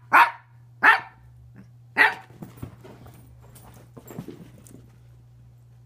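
Dog barking three times, loud and short, then a few quieter yips and noises, over a steady low hum.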